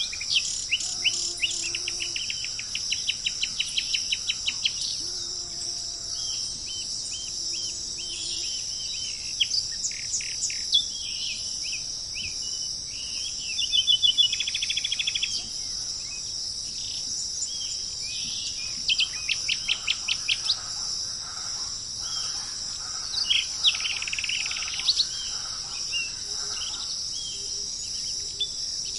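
Several wild birds chirping and giving rapid trills over a steady, high-pitched insect drone, with a low hooting call a few times in the first third.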